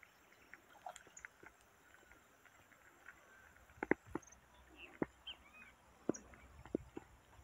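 Footsteps on dry grass, a sharp step roughly once a second from about four seconds in, with short bird chirps between them.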